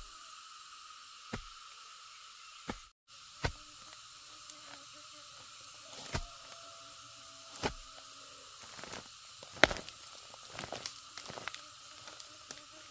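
A long-handled digging tool chopping into soil and fern roots: single strikes every second or two, the loudest about ten seconds in, then a quicker run of smaller knocks and scrapes near the end. A steady high hiss of insects runs underneath.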